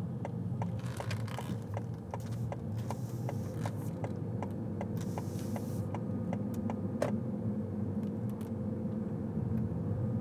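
Inside a car driving slowly: a steady low rumble of engine and tyres, with a light, even ticking about three times a second that stops about six seconds in.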